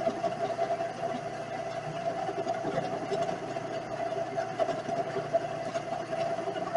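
Vevor 7x14 mini metal lathe running steadily, a constant hum from its motor and drive.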